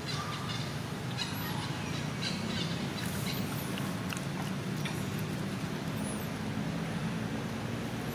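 Outdoor ambience: small birds give short, high, arching chirps several times over a steady low hum, with scattered faint clicks and rustles.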